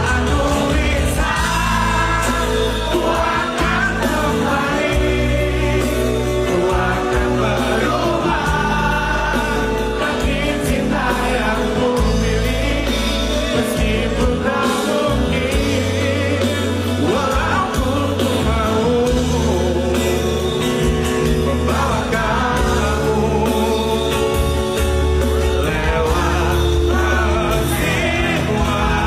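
A song with a singing voice over a steady bass and beat, laid over the video.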